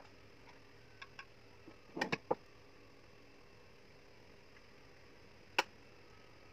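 A spatula clicking and tapping against a glass baking dish as cream is spread over the layer: two faint clicks about a second in, a quick group of three about two seconds in, and one more near the end.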